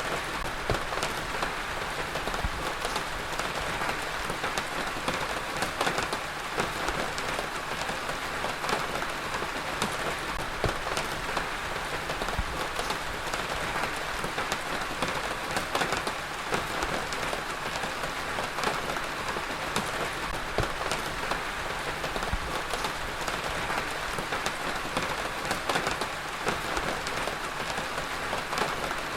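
Heavy rain falling steadily on a surface, an even hiss dense with the patter of individual drops.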